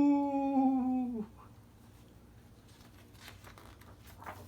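A man's voice acting out a sneeze, "achoo!", the end drawn out into one long held "oo" that slides a little lower and stops about a second in. The rest is quiet, with a few faint ticks.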